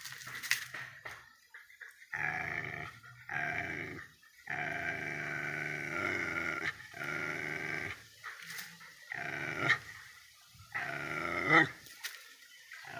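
A dog growling in a series of long drawn-out, pitched growls, each lasting one to two seconds, with short pauses between them.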